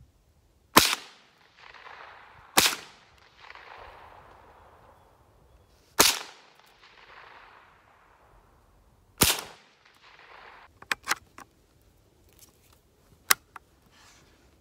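Four gunshots from a .22 rifle, the first under a second in and the rest a few seconds apart, each sharp crack trailing off in an echo. A few smaller clicks follow near the end.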